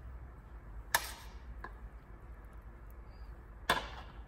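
A metal spoon clinks sharply against the dishes twice, about three seconds apart, while filling is spooned onto baghrir pancakes. A faint tick comes between the two clinks.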